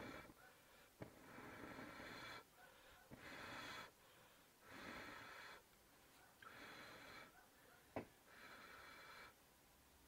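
Faint puffs of breath, five in a row about a second long each and evenly spaced, with a few small clicks between them and one sharper click about eight seconds in.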